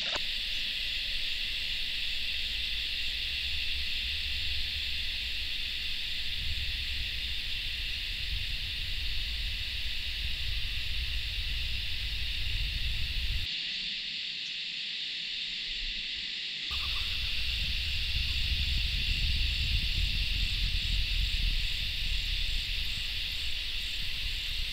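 Chorus of insects in bushland, a steady high-pitched drone, over a low wind rumble on the microphone. The rumble drops out for a few seconds midway.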